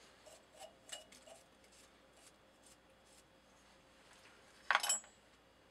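Faint light clicks and clinks of small metal chips being cleared off a milling vise and workpiece. A single short, louder scrape comes near the end.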